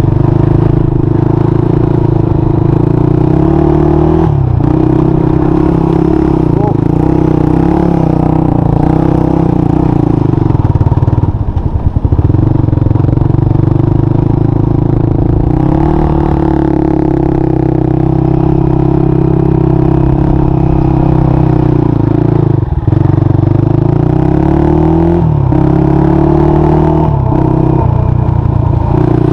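Honda 400EX quad's single-cylinder four-stroke engine running hard under throttle while drifting in snow. The revs rise and fall with the throttle, dipping briefly about twelve seconds in and climbing again several times near the end.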